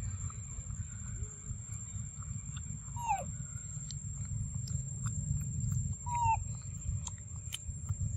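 Two short macaque calls about three seconds apart, each falling in pitch, over a steady low rumble and a thin, constant high whine.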